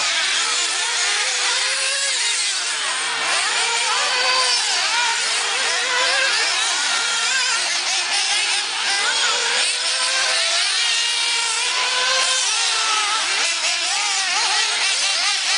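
Several 1/8-scale nitro RC buggy engines running at once, their high-pitched whines overlapping and repeatedly rising and falling as the buggies accelerate and slow through the course.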